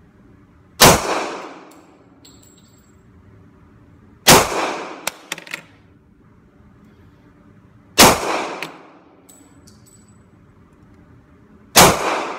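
Four shots from a Springfield XD-40 pistol in .40 S&W, fired one at a time about four seconds apart, each followed by about a second of reverberation off the walls of an indoor range booth. Small metallic clinks follow some of the shots.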